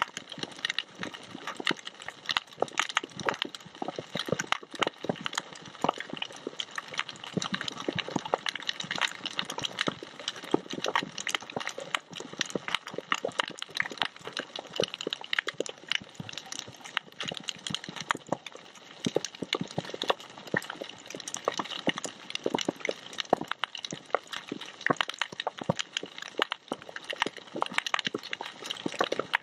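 Underwater coral-reef crackle: a dense, unbroken patter of sharp, irregular clicks and pops, the crackle typical of snapping shrimp on a reef.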